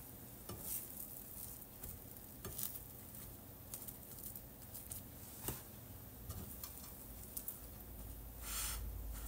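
Soft clicks and taps of food being handled in a nonstick frying pan as an egg omelette is folded around sandwich bread, over a faint sizzle. A brief louder rustle comes near the end as the sandwich is pressed down by hand.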